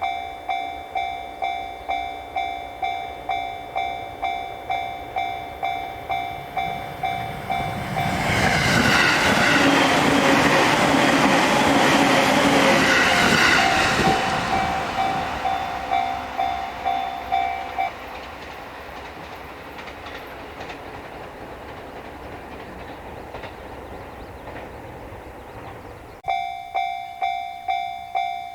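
Japanese level-crossing warning bell ringing in its steady repeating kan-kan, drowned out about eight seconds in by an electric train passing over the crossing on the JR Sobu Line. The bell stops as the train fades away, and starts ringing again near the end as the crossing warns of the next train.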